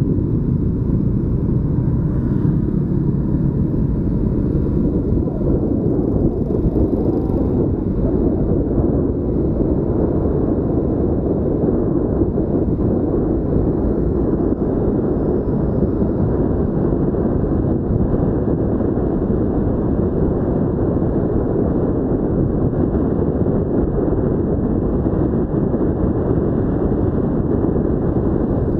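Steady wind buffeting on the microphone of a vehicle-mounted action camera, over a continuous low rumble of road and engine noise while driving.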